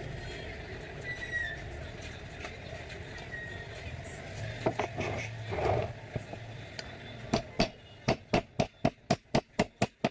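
A steady background hum and hiss, then a few scattered knocks, then a fast, even run of sharp knocks, about five a second, starting a little after halfway.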